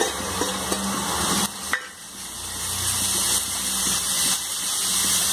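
Green chilli and ginger-garlic paste sizzling in hot oil with frying onions in an aluminium kadai, with a few light clinks of metal against the pan. The sizzle dips suddenly about a second and a half in, then builds again.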